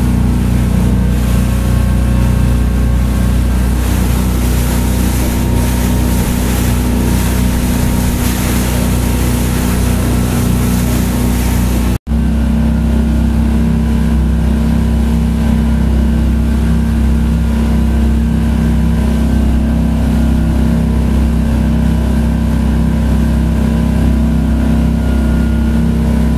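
Motorboat engine running steadily at speed, with rushing water and wind on the microphone. The sound cuts off abruptly about twelve seconds in and picks up again at once, the engine note steadier and the hiss lighter after the cut.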